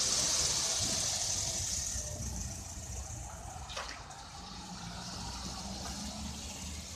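Classic cars rolling slowly over cobblestones, their engines running with a low rumble. A loud hiss of tyre and road noise fades over the first few seconds, and there is one sharp click near the middle.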